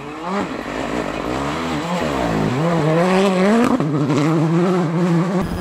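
Hyundai i20 Rally 2 rally car's turbocharged four-cylinder engine revving hard on a dirt stage. Its pitch falls to a low point about two and a half seconds in, climbs back up under acceleration, drops briefly at a gear change and holds high near the end.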